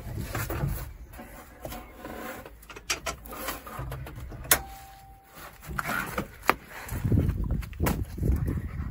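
Scattered clicks and knocks from someone handling the controls in a Zetor Crystal 8011 tractor cab with the engine off, one sharp click about four and a half seconds in. Low rumbling handling noise on the microphone near the end.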